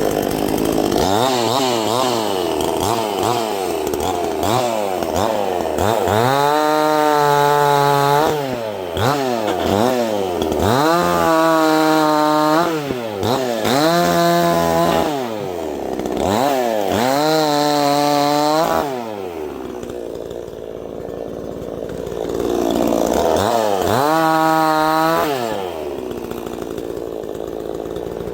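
NEOTEC 68cc two-stroke gas chainsaw being revved over and over. Quick throttle blips come first, then several held revs of a second or two, each dropping back to a lower idle, with longer stretches of idling near the end.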